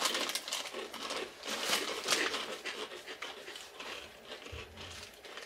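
Crunching of spicy corn tortilla chips being chewed, a close run of irregular crisp crunches.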